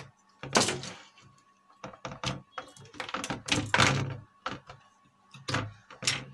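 Irregular clicks, knocks and thumps of hardware handled on a workbench: a debug card pulled out of an Asus H61 motherboard's expansion slot, and the board and its cables moved about. A faint steady tone runs underneath.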